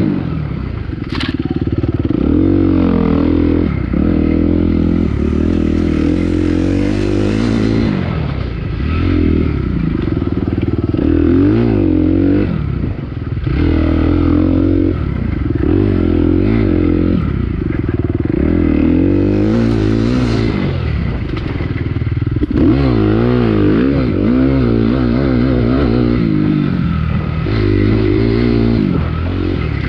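Dirt bike engine racing hard, its revs climbing and dropping back over and over. Two short bursts of hiss come in around five and nineteen seconds in.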